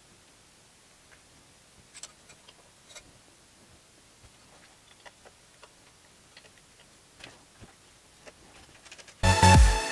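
Faint, irregular small clicks and taps of fan cables and connectors being handled and plugged in inside a PC case. Near the end, loud electronic dance music cuts in.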